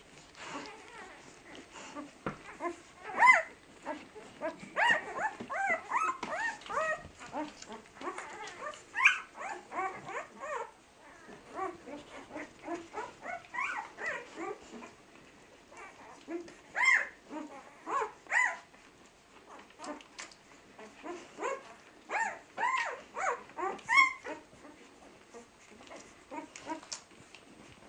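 Seven-day-old flat-coated retriever puppies squeaking and whimpering while nursing: many short, high, bending calls in clusters, with quieter gaps between.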